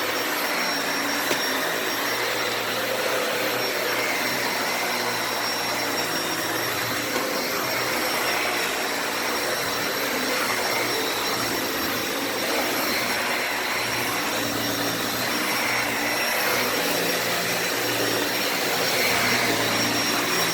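Dyson Ball Animal 2 upright vacuum cleaner running steadily on thick carpet: a constant rush of suction with a thin high motor whine, swelling slightly as the head is pushed back and forth.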